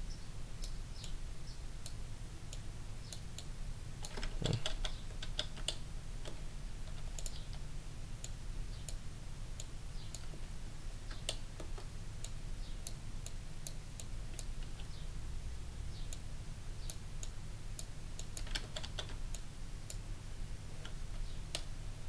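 Computer keyboard and mouse clicking: scattered quick taps at irregular intervals, bunched in short runs, over a steady low hum.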